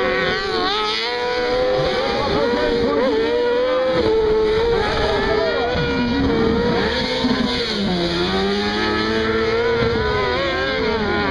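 Several autocross buggy engines revving on a dirt track. The pitch rises and falls repeatedly as the cars brake and accelerate through the corner, and one engine note drops low about eight seconds in as a car runs past.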